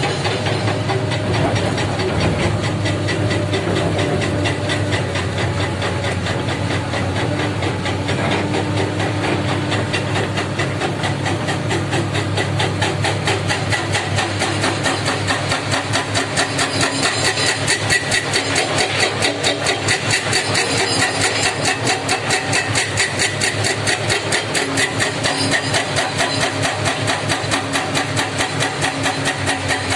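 Heavy diesel construction machinery engine running steadily, taking on a regular pulsing beat a few times a second from about halfway through.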